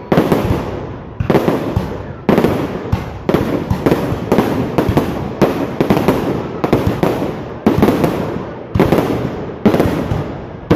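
Fireworks going off in steady succession: about ten loud bangs, roughly one a second, each dying away in a rumbling, crackling tail before the next.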